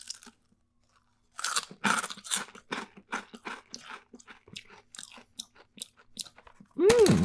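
Potato chips crunched and chewed close to the microphone: a dense run of loud crunches about a second and a half in, thinning to softer, sparser chewing crunches. Near the end, a short loud pitched sound slides up and back down.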